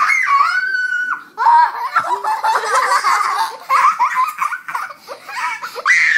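Young girl laughing while being tickled: a long high-pitched cry in the first second, then rapid, breathless bursts of giggling laughter.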